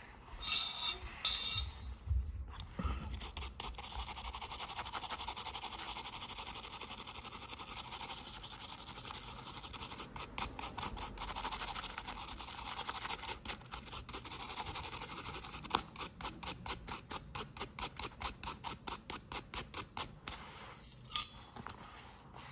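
Rhythmic hand scraping, strokes about three to four a second, coming in runs over a steady scratchy hiss.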